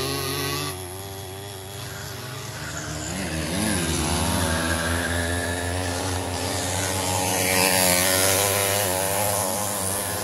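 Small two-stroke moped engines running at high revs, their pitch rising and falling with the throttle. One comes closer and is loudest about eight seconds in.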